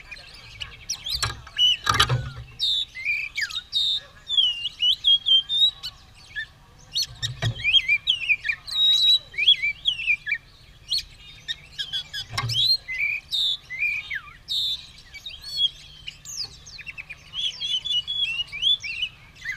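Oriental magpie-robin (kacer) singing a long, varied song of rapid whistles, trills and chirps. A few sharp knocks come through, about one and two seconds in, around seven and a half seconds and around twelve and a half seconds.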